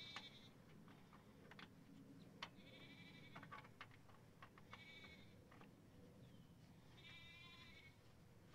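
Faint bleating of farm animals: four short, quavering calls, the last and longest near the end. A few soft clicks come in between.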